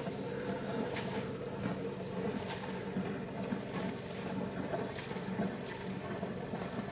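Steady low engine hum, with a few faint clicks and splashes from the water about one, two and a half, and five and a half seconds in.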